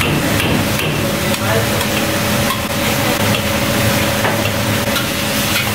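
Fried rice sizzling in a large wok, stirred and tossed with a metal ladle and spatula that scrape against the pan, over a steady hum.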